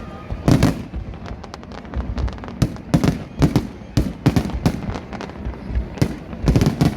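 Fireworks display going off: a stream of sharp bangs, several coming in quick clusters, over a steady low rumble.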